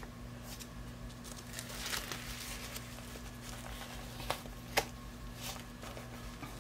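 Disposable diaper rustling as it is fitted and pulled into place around a silicone baby doll, with two short sharp snaps a half second apart about four seconds in.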